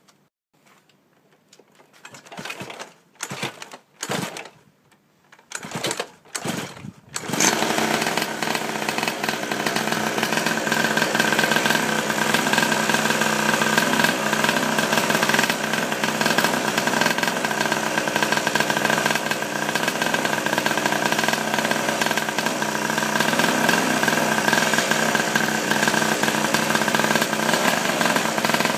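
Chinese pocket bike's small two-stroke engine: several short sputters as it is cranked, then it catches about seven seconds in and runs steadily.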